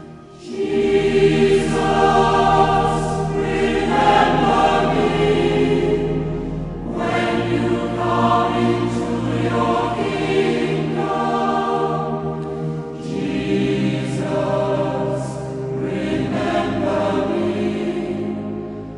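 Choir singing a slow Taizé chant in three long repeated phrases of about six seconds each, with a short breath between them.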